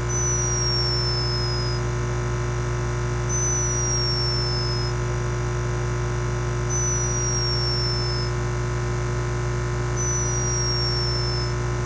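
Steady, unchanging hum or drone, with a high falling tone about a second and a half long that repeats four times, roughly every three and a half seconds.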